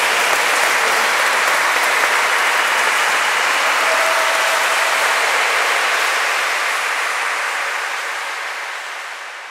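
Audience applause, dense and steady, fading out over the last few seconds.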